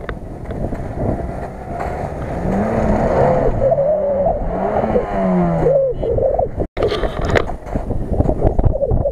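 Off-road SUV's engine revving up and down about four times in quick swings as it drives through snow. After a sudden break, a Lada Niva's engine running under load with knocks and rattles as it climbs.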